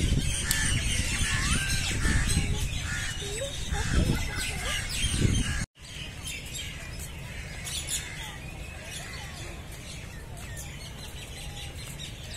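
Many small birds chirping and calling together. For about the first half a low wind rumble on the microphone goes with it. That rumble stops suddenly, and the birdsong goes on over a quieter, steady background.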